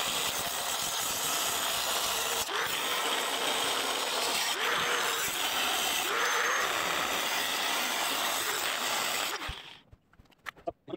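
Angle grinder cutting through the thick wall of a cast-iron exhaust manifold, a steady grinding hiss that cuts off suddenly near the end, followed by a few light clicks.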